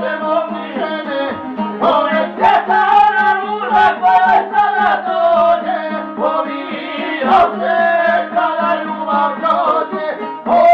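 Folk tune played live on a violin and a long-necked plucked lute over a steady low drone, with a man singing along.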